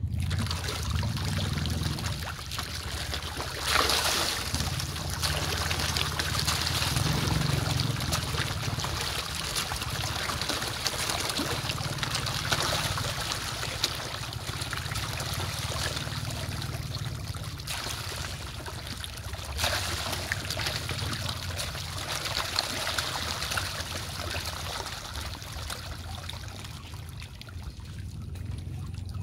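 Water splashing and churning as a dense shoal of fish thrashes at the surface: a continuous wash of splashing that swells about four seconds in and again near twenty seconds.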